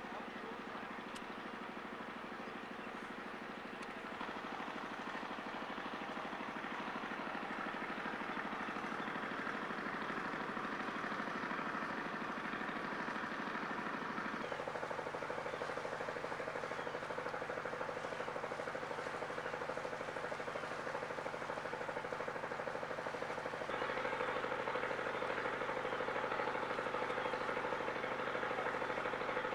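Steady drone of a helicopter's engine and rotor, heard from inside the aircraft, its tone shifting abruptly twice.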